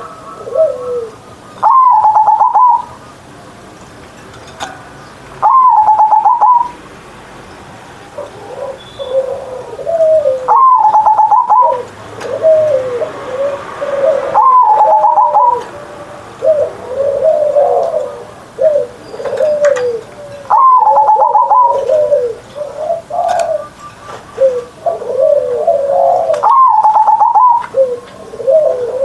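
Zebra dove (perkutut) singing its cooing song: a loud, higher phrase every four to six seconds, with softer, lower bubbling coos between them.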